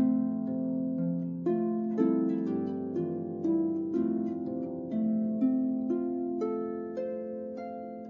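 Background music: a slow, gentle melody of plucked notes over held chords, each note starting sharply and fading away.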